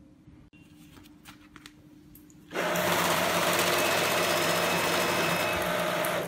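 Renjie RJ-660(A) banknote sorting machine starting about two and a half seconds in and running a stack of banknotes through its feeder with a steady, loud whir and low hum, then stopping abruptly near the end. A few faint clicks come before it starts.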